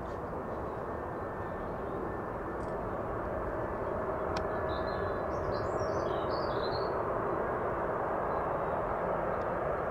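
Jet engines of a Boeing 747-400 on final approach: a steady rumble that grows gradually louder as the aircraft nears. A small bird chirps several times around the middle.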